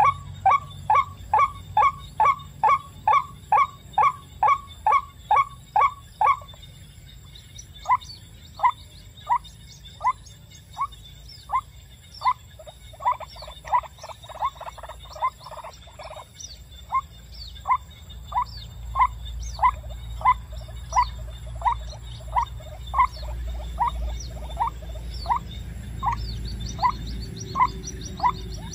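White-breasted waterhen calling: a long series of short, falling notes. They come quickly, about two and a half a second, then after a pause turn slower and uneven, with a quicker run in the middle. A low rumble grows under the calls in the last third.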